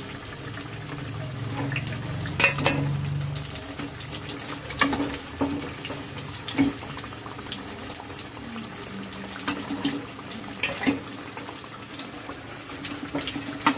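Battered potato-and-paneer sandwiches deep-frying in a kadhai of hot oil, sizzling steadily, while a metal slotted spoon knocks and scrapes against the pan several times as they are lifted out.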